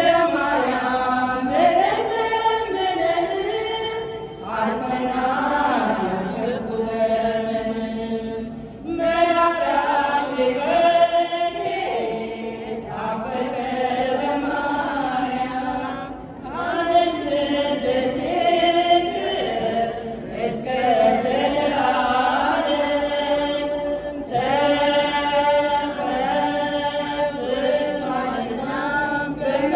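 Ethiopian Orthodox women's choir singing a hymn in Amharic with no instruments, in phrases of about four seconds, each followed by a short pause for breath.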